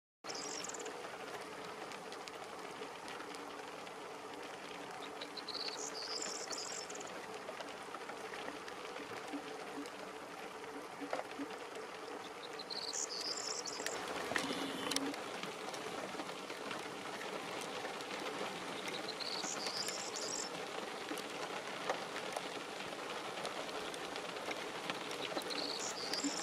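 Male corn bunting singing a short high song phrase five times, about every six to seven seconds, each phrase climbing at its start. Behind it is the steady hiss of rain.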